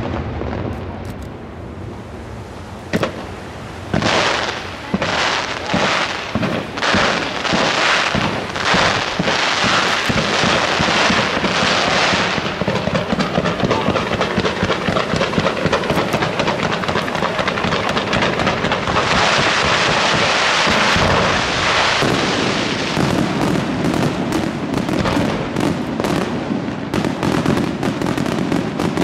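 Aerial fireworks display by the Fratelli Pannella pyrotechnic firm. A couple of single bangs are followed by a quick run of shell reports about once a second, then a dense continuous crackle and a rapid volley of sharp bangs near the end.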